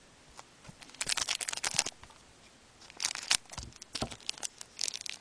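Shiny wrapper of a hockey trading card pack being torn open and crinkled by gloved hands: clusters of crackling about a second in, around three seconds, and near the end, with a couple of soft thumps between them.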